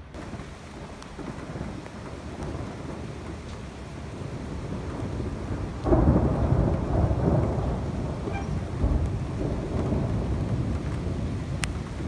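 Thunder rolling over steady rain: a sudden loud crack about six seconds in, followed by a long rumble that rises and falls.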